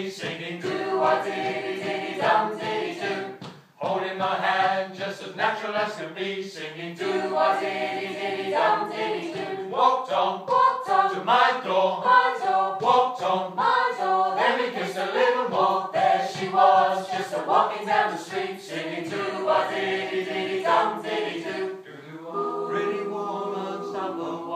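Small mixed choir of men and women singing a cappella in harmony, in sustained phrases with one short break about four seconds in.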